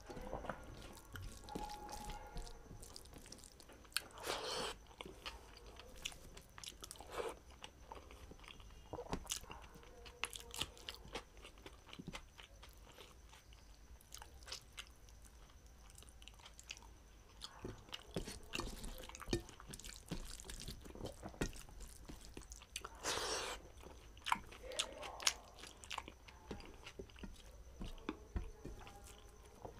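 Close-miked chewing and wet mouth sounds of a person eating rice and curry by hand, with many small sharp clicks and a couple of longer noisy sounds, about four seconds in and again about 23 seconds in.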